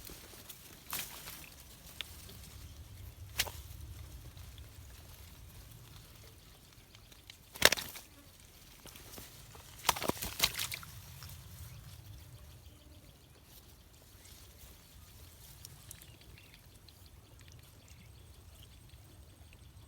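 Water splashing and sloshing in a pond, with a few short sharp splashes: the loudest about eight seconds in and a quick cluster around ten seconds. A low steady rumble runs underneath.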